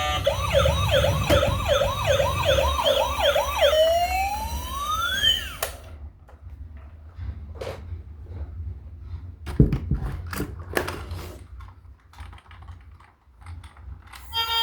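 Toy emergency vehicle's electronic siren wailing fast, about three rises a second, then one slower sweep before it cuts off suddenly about five and a half seconds in. Scattered light clicks and knocks follow.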